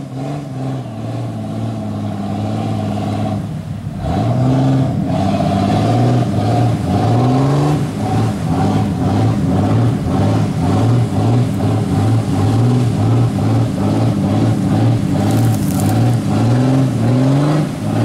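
Jeep Cherokee XJ engine working under load in deep mud. It runs steadily at first, drops briefly about three and a half seconds in, then is revved up and down over and over, about once a second.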